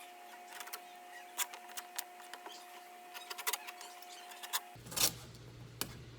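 Painter's tape being handled and pressed onto a car door's window glass: scattered light clicks and taps, with one louder, brief rasp about five seconds in.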